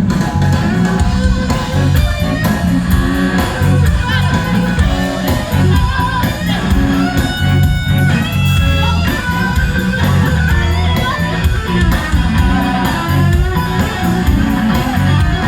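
Live blues band: an electric guitar solo with bent, held notes over a bass line.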